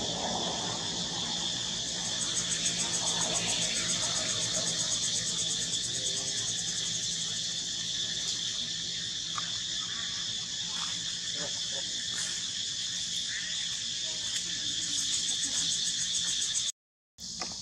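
Steady chorus of insects trilling, a high, fast pulsing buzz, with a few faint clicks; the sound cuts out for a moment near the end.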